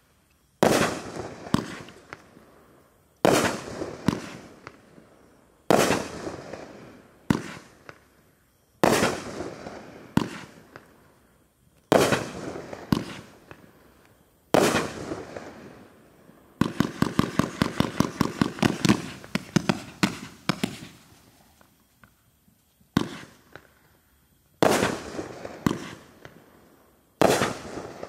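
A 40-shot, 500-gram consumer fireworks cake firing aerial shells: sharp bangs every two to three seconds, each trailing off, with a fast run of pops in the middle.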